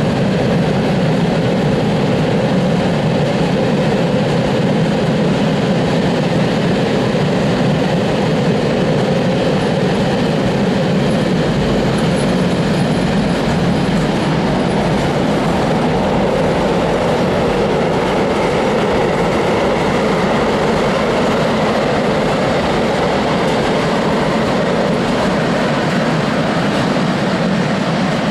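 A freight train of tank wagons rolling past, its wheels making a steady, unbroken noise on the rails.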